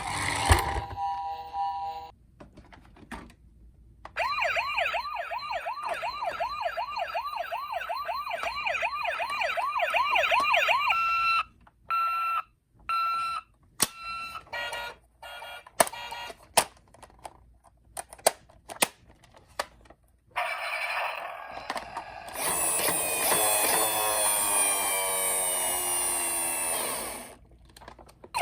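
Electronic siren sounds from toy emergency-vehicle minicars. A fast wailing yelp starts about four seconds in, followed by a few short steady beeps and a run of sharp clicks. Near the end a second, busier siren sound plays for several seconds, then stops.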